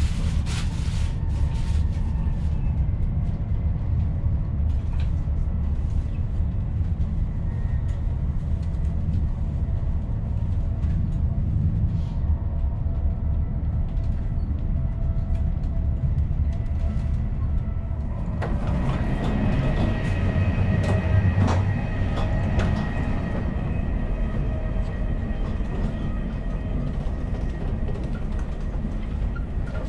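DB ICE 1 high-speed train running, a steady low rumble of wheels on track. About two-thirds of the way through, higher ringing tones and a few clicks join the rumble.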